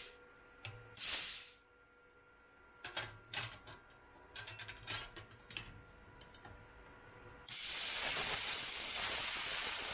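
Plasma cutter torch blowing air: a short puff of hiss about a second in, a scatter of clicks, then a loud steady hiss from about seven and a half seconds in. The air is flowing, but the torch is not striking an arc, a sign the cutter is still faulty.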